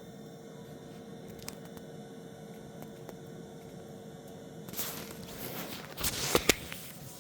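Wood fire burning quietly over a steady low hum, with a few faint crackles. Near the end comes a burst of rustling and several sharp knocks, the loudest sounds.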